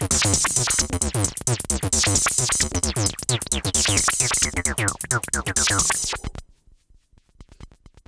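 Modular synthesizer jam built around a Joranalogue Delay 1 short-delay module: a fast steady electronic beat with dense percussive hits and plucked tones that drop in pitch. It cuts off suddenly about six seconds in, followed by a few faint knocks.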